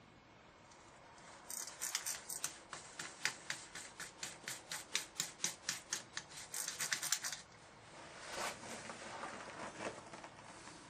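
Bicycle freewheel's ratchet clicking rapidly, about five light metallic clicks a second for some six seconds, then a couple of softer scraping sounds.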